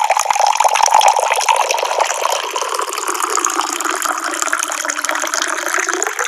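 Water pouring from a tap in a steady, splashing stream.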